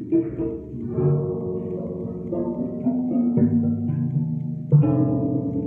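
Ludophone percussion being played: a mallet strikes the stainless-steel keys mounted over large hemispherical dome resonators, giving a handful of low, pitched notes that ring on and overlap, the loudest struck near the end.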